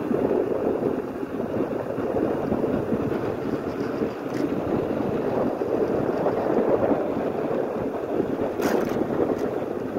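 Wind buffeting the microphone of an e-bike in motion, a steady rushing noise. A single short click comes near the end.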